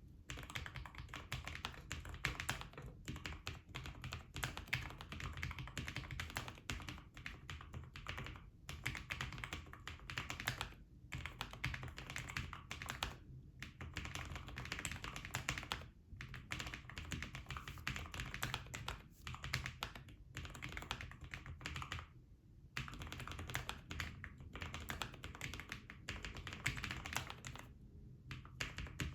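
Continuous typing on a Lofree Edge low-profile mechanical keyboard: fast runs of light key clicks, broken by short pauses every few seconds.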